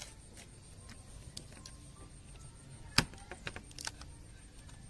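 Light taps and clicks of small parts and tools being handled during electronics repair, with one sharp click about three seconds in.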